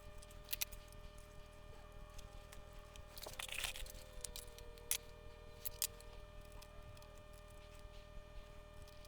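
Faint clicks and light taps of hand tools working a switch at a soldering bench, with a brief hiss a little over three seconds in, over a faint steady hum.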